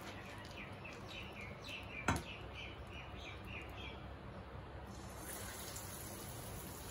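Faint bird chirping: a quick run of short, repeated chirps over the first few seconds. A single sharp knock comes about two seconds in, over steady low background noise.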